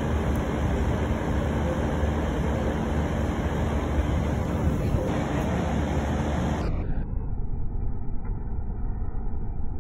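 Comfort Zone heater's fan running: a steady whoosh of moving air with a low motor hum.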